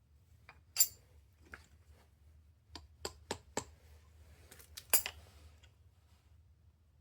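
Light hammer taps on metal, driving a small pin into the MAC AH650 air hammer's body. About ten sharp, irregular clinks, the loudest two about a second in and about five seconds in.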